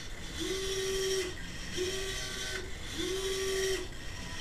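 A homemade humanoid robot's right ankle roll actuator whining as it drives the foot through its roll movement: three steady motor whines of about a second each, with short pauses between.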